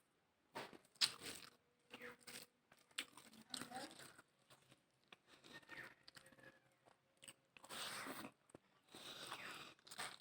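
Close-up eating sounds: irregular crunching bites and chewing, with wet mouth sounds between them.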